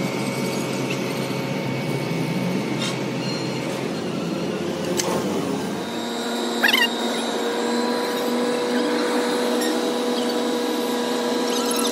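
A motor-driven machine running steadily, its tone changing about halfway through, with a brief squeal shortly after.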